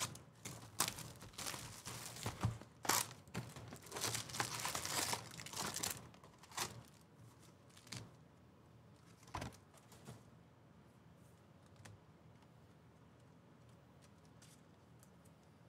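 A sealed Topps Pro Debut baseball-card hobby box being torn open: crinkling and tearing of wrapper and cardboard for about seven seconds, then a few light taps as the packs are taken out and stacked.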